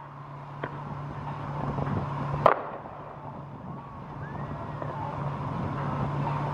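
A single sharp firecracker bang about two and a half seconds in, with a small pop shortly before it, over a steady low hum.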